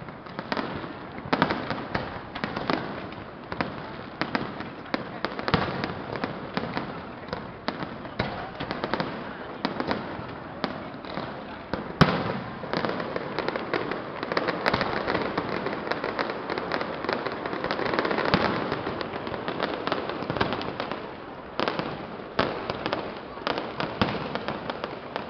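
Aerial fireworks bursting: a dense, continuous run of bangs and crackles, with one sharp bang about halfway through standing out as the loudest.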